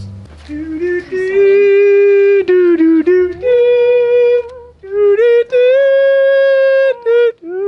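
A voice singing a wordless tune in long held notes with short breaths between them. The melody starts low and steps up to higher notes about halfway through.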